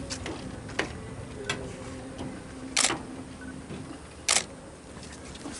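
Handling noise from a hand-held camera: scattered light clicks and two louder sharp scrapes, the first near the middle and the second about a second and a half later, over a faint steady hum.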